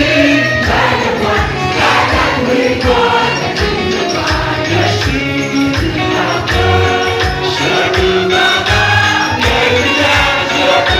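Gospel worship music: a group of voices singing over a steady beat.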